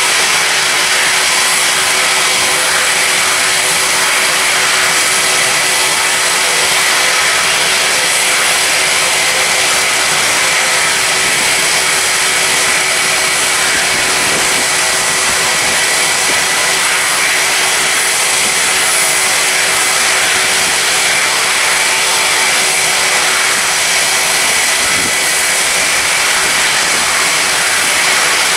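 Twin jet engines of a Boeing 777 climbing away after takeoff at high thrust: a loud, steady roar with a faint high whine running through it.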